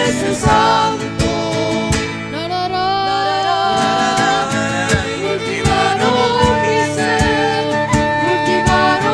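A band playing an instrumental passage of a song: strummed guitar on a steady beat under a held, wavering melody line.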